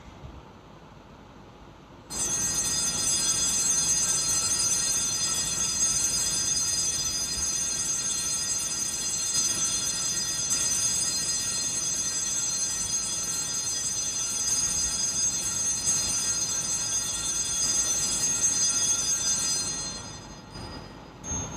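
Small altar bells ringing continuously in a bright, high-pitched jangle while the monstrance is raised in benediction. The ringing starts suddenly about two seconds in, holds steady for some eighteen seconds and dies away near the end.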